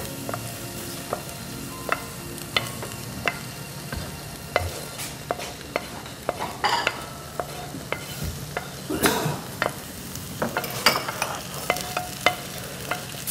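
Wooden spoon scraping a fried minced-meat, onion and tomato mixture out of a frying pan into a hot stainless steel pan. Frequent irregular taps and knocks of the spoon against the pans sound over a steady sizzle.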